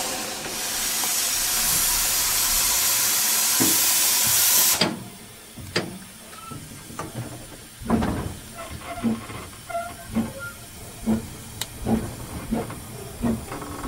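Narrow-gauge steam locomotive: a loud, steady hiss of steam that cuts off suddenly after about five seconds. A few seconds later the exhaust beats start at about two chuffs a second as the locomotive pulls away on the right-away.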